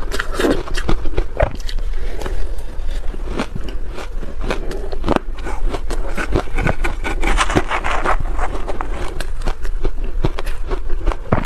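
Soft shaved ice coated in matcha powder being crunched and chewed, with a spoon scraping and scooping through the ice in the bowl; a dense, irregular crackle of bites.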